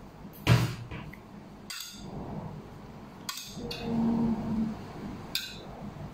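A serving utensil knocks and clicks against a plate and a wooden board as chicken filling is scooped onto thin flatbread wrappers. The sharpest knock comes about half a second in, with a few lighter clicks after it. A brief low hum of a voice comes about four seconds in.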